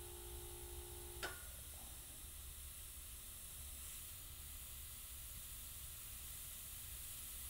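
Gravity-feed airbrush hissing softly as it sprays fine detail, with a single sharp click a little over a second in.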